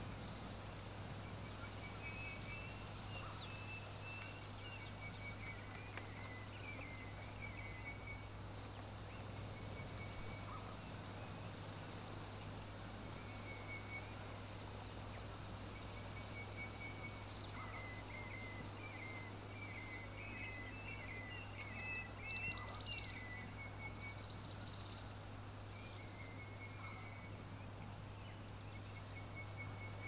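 Grey francolin (Indian grey partridge) calling: repeated series of short, high chirping notes in several bouts, the longest a little past the middle. A steady low hum runs underneath.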